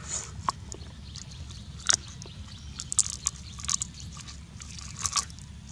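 Someone eating cooked duck: irregular crisp clicks and crunches of biting and chewing, a few louder sharp snaps about two, three and five seconds in.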